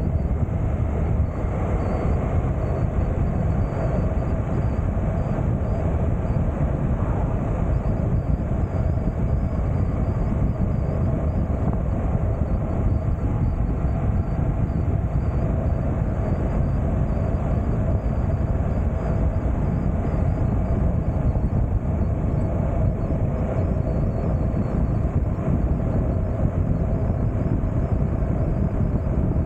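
Steady riding noise of a Honda NC750X motorcycle cruising at an even pace: wind rushing over the microphone mixed with engine and tyre noise, with no changes in speed or gear.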